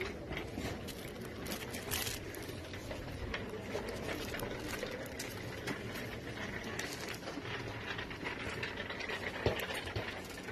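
Indoor shop noise: a steady background hum with scattered small clicks, taps and rustles of goods being handled.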